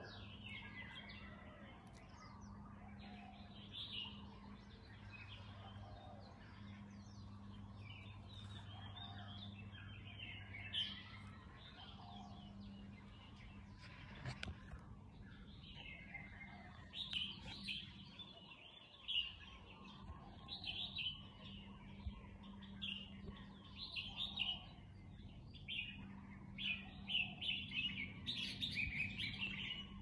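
Several small songbirds chirping and singing in short, overlapping calls, coming thick and fast in the second half, over a faint low steady hum. A single sharp click near the middle.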